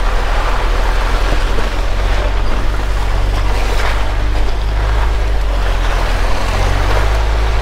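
2021 Jeep Wrangler Rubicon driving down a dirt trail: a steady low engine hum under constant tyre and road rush.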